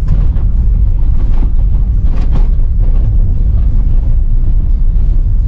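Loud, steady low rumble of a road vehicle on the move.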